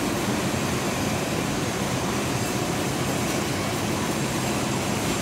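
Steady machine-shop noise of a cone crusher bowl being machined: a machine tool cutting the steel part, with a constant low hum and hiss and no change in level.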